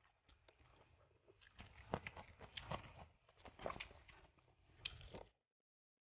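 Quiet, close-miked eating sounds: fingers picking through rice and fish on a paper food wrapper, and chewing, a run of soft clicks and crackles that cuts off abruptly about five seconds in.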